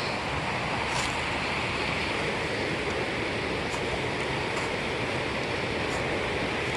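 Steady rushing of Seneca Creek Falls and the creek, a constant roar of falling water.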